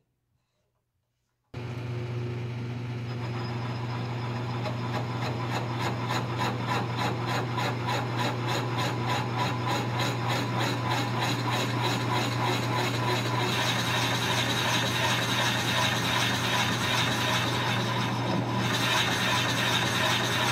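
Drill press running with a large boring bit cutting into the end grain of a log: a steady motor hum under the fast, rasping shave of the bit through the wood. It starts suddenly about a second and a half in and grows harsher about two-thirds of the way through.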